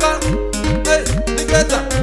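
Instrumental African dance music with a steady drum beat and bass notes that slide upward, without singing.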